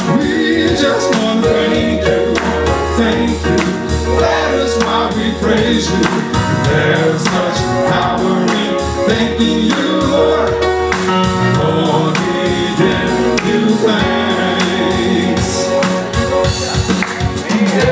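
Live gospel praise music: a church band playing with singing over it.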